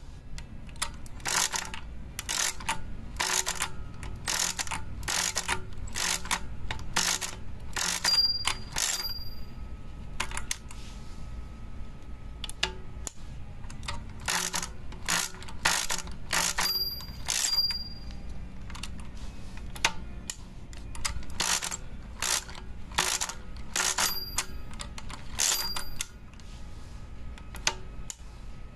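Felix-M pinwheel mechanical calculator being cranked over and over, its gears and pinwheels clicking in quick groups with each turn, the carriage shifted between runs. A small bell dings four times, each ding signalling that a repeated subtraction in long division has gone past zero.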